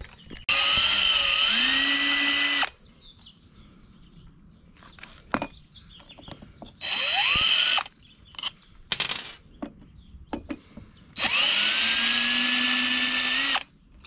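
DeWalt cordless drill-driver backing out the split-rim screws on a scooter wheel in three runs, about two seconds, one second and two and a half seconds long. Each run is a motor whine that rises in pitch as it spins up. Small clicks of the screws and bit come between the runs.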